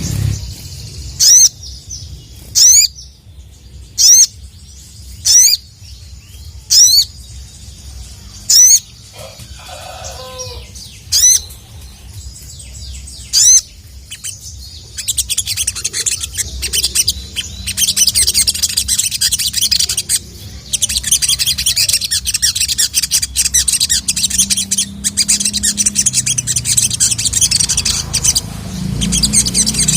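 A sogon (sogok ontong), a nectar-feeding songbird, gives about eight loud, sharp, high single calls a second or two apart (the "cuit cuit" call). About halfway through it breaks into a fast, continuous high chattering song. A low steady hum runs underneath.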